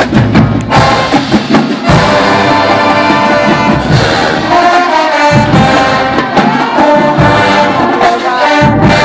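Marching band playing loudly, brass horns holding the tune over drum hits.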